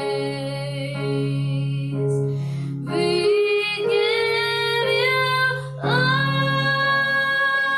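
Slow worship song: a woman singing long held notes over steady sustained instrumental accompaniment with a low held bass note. The singing breaks briefly about two and a half seconds in, then resumes with a new held phrase.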